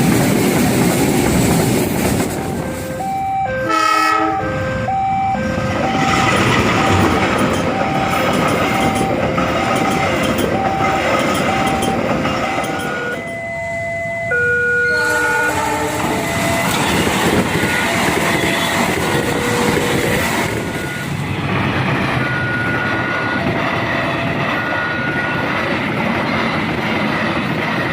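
A train running past at close range, wheels clattering on the rails under a steady rumble, with horn blasts: a cluster of horn tones about four seconds in and another about fourteen seconds in. Short repeated tones sound through much of the rest.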